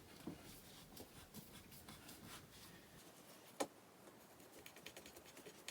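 Faint small clicks and taps of a screw being driven by hand into a flat-pack TV stand part, with one sharper click about three and a half seconds in and a quick run of ticks near the end.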